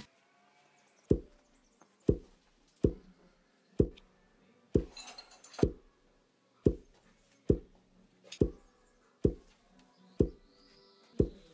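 About a dozen short, sharp knocks at a steady pace of roughly one a second, with a short hiss about five seconds in.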